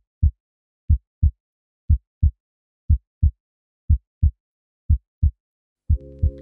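Heartbeat sound effect: pairs of short, low lub-dub thumps, about one pair a second, seven times over, with silence between the beats. Just before the end a steady low synth chord comes in under the beats.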